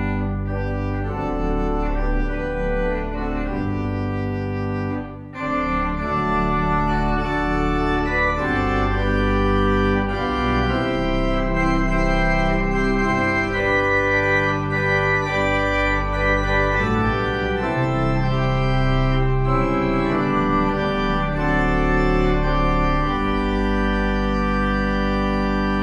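Organ music: slow, sustained chords changing from one to the next, with a brief break about five seconds in.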